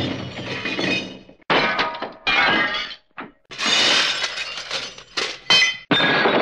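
Cartoon crash sound effects from the Hanna-Barbera library, played one after another: a string of about seven separate crashes of breaking glass and clattering debris, each starting sharply and tailing off.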